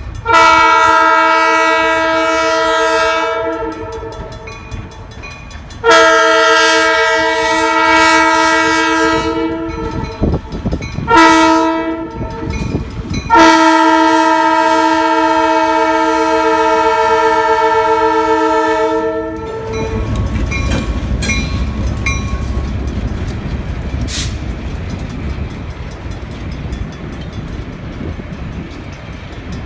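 A diesel locomotive's air horn blowing the grade-crossing signal: long, long, short, long, with the last blast held about six seconds. The horn then stops and the locomotive rumbles past with a few clicks.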